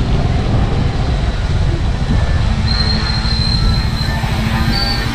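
Steady rumbling road noise of a moving vehicle.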